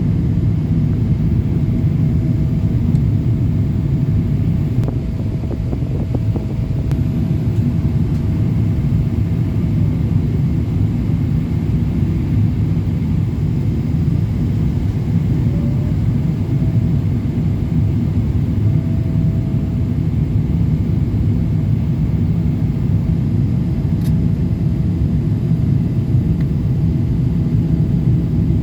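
Steady low rumble of an Emirates Boeing 777-200LR in flight, its engine and airflow noise, with a faint steady whine above it that fades in and out.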